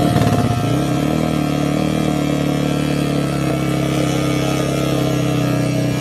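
Drag-racing underbone motorcycle engine revved in quick pulses, then held at a steady high rev from about a second in.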